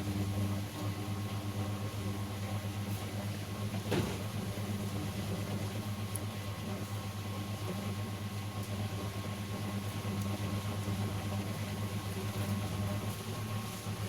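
Steady low machine hum, with one sharp click about four seconds in.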